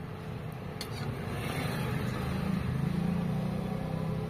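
A motor vehicle's engine passing nearby, its low hum swelling to a peak about three seconds in and then easing. A ladle clinks once against the pan about a second in.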